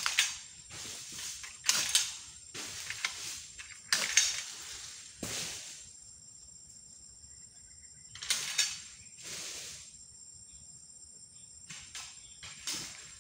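Irregular sharp swishing crashes, about a dozen, of oil palm fronds being cut with an egrek pole sickle and dropping through the foliage. Each dies away within about a second, over a steady high-pitched insect drone.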